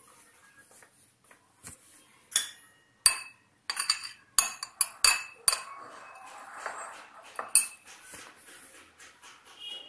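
A steel spoon clinking against a glass bowl of shredded papaya salad: a run of sharp, ringing clinks from about two to eight seconds in, with a soft rustle of the salad being stirred between them.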